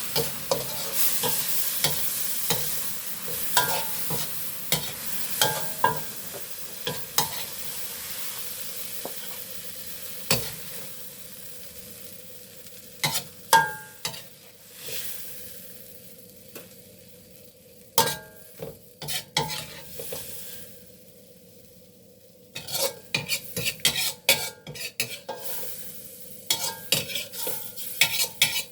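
A stir-fry sizzling in a pan while a spatula scrapes and clacks against the pan. The sizzle fades over the first half, and near the end comes a quick run of spatula strikes.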